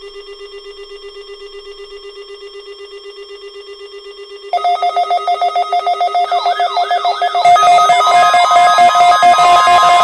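Electronic tones: a steady, rapidly pulsing tone, joined about four and a half seconds in by a louder, higher tone with warbling glides, and about seven and a half seconds in by a fuller, louder layer.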